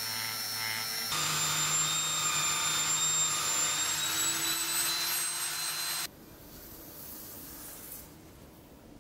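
A small rotary tool with a polishing bit running against a metal toy-truck grille, then about a second in a buffing wheel's motor running with a steady high whine as the grille is polished on it. It stops abruptly about six seconds in, leaving only faint quiet handling.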